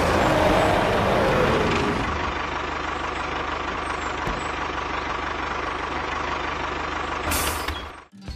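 A truck engine runs steadily with a hiss. A falling-pitched sound passes over it in the first two seconds, and the sound cuts off abruptly near the end.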